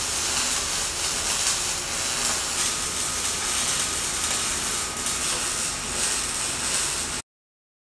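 MIG welding arc sizzling steadily as a seam is run along steel sheet. It cuts off suddenly near the end.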